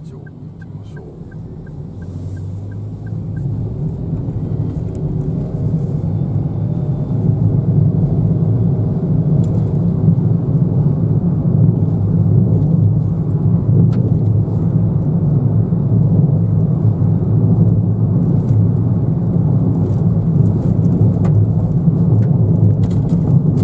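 In-cabin sound of a Daihatsu Move kei car's three-cylinder 660 cc engine and tyres as it speeds up to about 50 km/h on a rough road. The engine note rises and the low road rumble grows louder over the first several seconds, then holds steady. A light, regular ticking is heard for the first few seconds.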